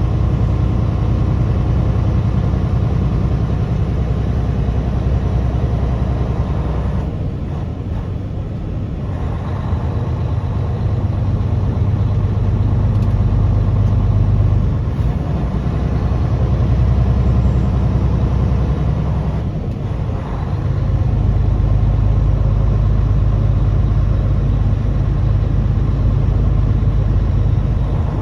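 Truck's diesel engine running steadily, heard from inside the cab while driving, a low drone that eases off briefly twice, about seven seconds in and about twenty seconds in.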